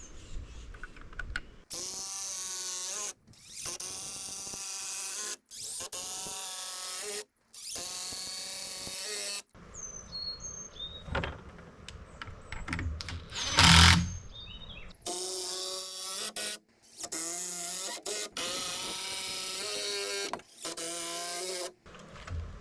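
Electric saw cutting 45-degree angles in framing lumber. It runs in repeated bursts of one to two seconds that start and stop abruptly. A sharp, loud knock comes about 14 seconds in.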